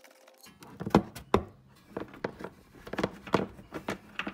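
Irregular knocks and taps, loudest about a second in: hands working behind a plastic wheel-arch liner to pull an electrical cable and its connector through.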